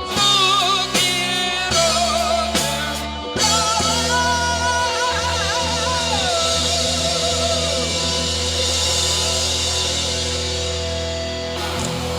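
Live rock band playing the ending of a song. A few accented stop-hits on drums, bass and guitars come in the first three seconds, then a long final chord rings out under a bending guitar lead and fades away near the end.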